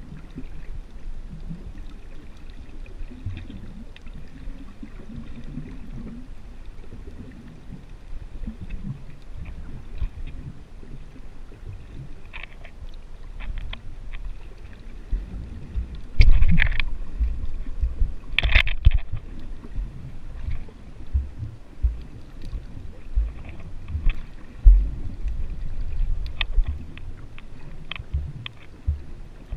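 Muffled underwater sound picked up through a GoPro's waterproof housing while snorkeling: a steady low rumble of moving water, with scattered faint clicks and two louder brief bursts about two seconds apart past the middle.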